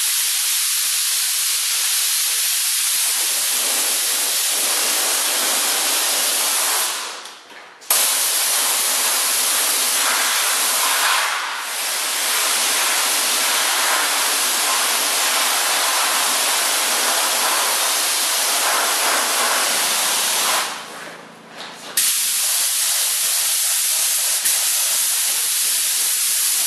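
Small DeVilbiss FinishLine spray gun hissing as compressed air atomises paint onto an engine block, in long steady passes that stop briefly twice and restart abruptly.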